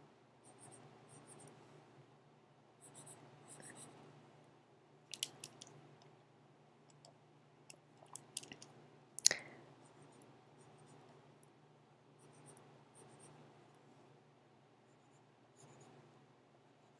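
Faint scratching of a stylus drawing short strokes on a graphics tablet, with scattered small clicks and one sharper click or tap about nine seconds in. A steady low hum runs underneath.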